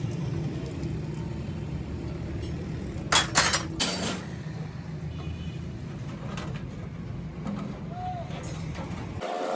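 Steady low background rumble with a quick cluster of sharp knocks or clinks about three seconds in, typical of tools or parts being handled in a workshop.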